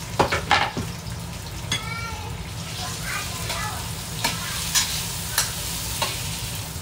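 Tomato pieces sizzling as they fry in oil in a pan, with a spatula stirring them and clicking and scraping against the pan several times.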